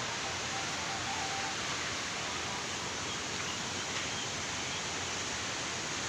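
Steady rush of falling water, an even hiss with no clear events.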